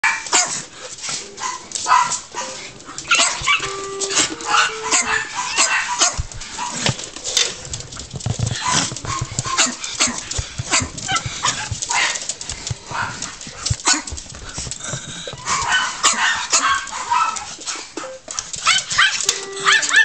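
Miniature pinschers barking repeatedly at a Roomba robot vacuum, in quick, sharp barks.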